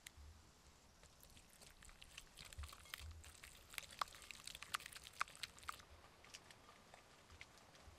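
Wire whisk beating an egg-yolk and mustard dressing in a plastic bowl: a faint, fast, irregular run of light clicks as the wires strike the bowl, thinning to scattered ticks near the end.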